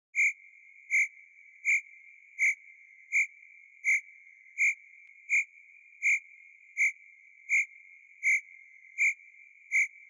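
Cricket chirping: evenly spaced single chirps, about fourteen in ten seconds, over a faint continuous trill at the same pitch.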